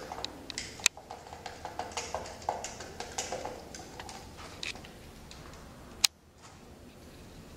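A run of light clicks and taps, with a sharp click about a second in and another about six seconds in; no drill is running.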